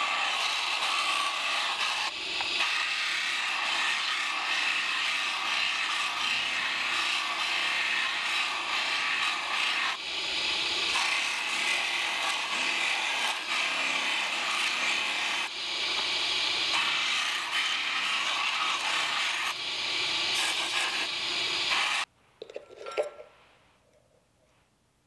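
Belt grinder grinding a san mai steel billet, a steady rasping hiss broken by a few short dips as the blade is lifted off the belt. It cuts off abruptly near the end, followed by a few light clicks.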